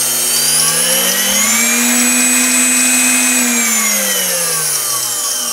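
Bestline AL-500P power feed's brushed motor whining as its speed is turned up with a substitute 10K potentiometer: the pitch rises over about two seconds, holds for a second or so, then falls as the speed is turned back down. The speed responds smoothly to the test potentiometer, showing that the unit's original speed-control potentiometer is the fault.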